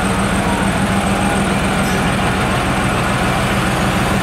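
Heavy diesel engine of an army crane truck idling steadily, with a constant low hum.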